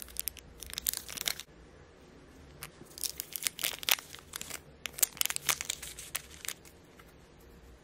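A small paper packet for a replacement watch crystal crinkling and rustling as fingers handle and open it, with light clicks and taps. The crackling comes in two spells: a short one at the start and a longer one from about two and a half seconds in.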